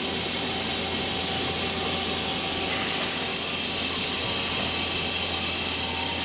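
Steady machinery noise: an even hiss with a low hum and a few faint steady whines, holding one level throughout.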